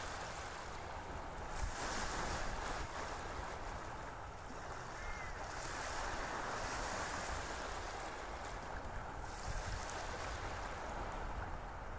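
Chicken pieces sizzling in a pot of onions and tomatoes as they are stirred: a steady frying hiss that swells and fades every few seconds.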